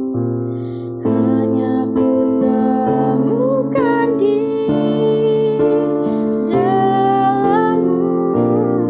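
A woman singing a slow worship song over piano chords, which change about once a second.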